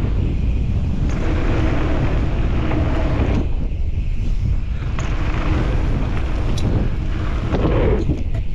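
Wind buffeting a helmet-mounted camera's microphone over the rumble and hiss of mountain-bike tyres on dirt and boardwalk during a fast downhill run. The hiss thins out briefly in the middle, and a few sharp clacks from the bike come near the end.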